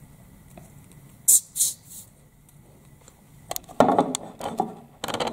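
Two short hisses about a second in, then a cluster of knocks and rustling from about three and a half seconds in as the handheld camera is moved about.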